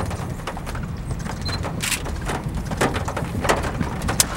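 Storm wind near a tornado rumbling low on the microphone, with scattered irregular ticks and knocks throughout.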